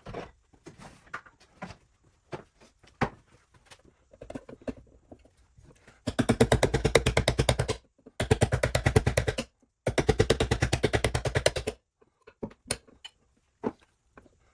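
A handheld power tool run in three bursts of one to two seconds each, with a fast hammering rattle, after a few seconds of light knocks and clicks from handling.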